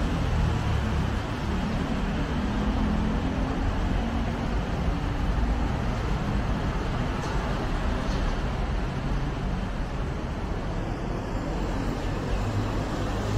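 Steady road traffic noise from the street below: a constant rumble of passing cars and motorbikes.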